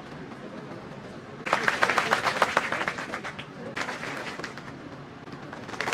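Audience clapping. A burst of applause starts about a second and a half in, dies down, and picks up again near the end.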